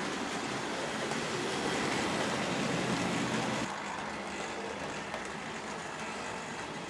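OO gauge model trains running on the track, a steady whir of the small electric motors and wheels on rail. The sound drops suddenly quieter a little under four seconds in.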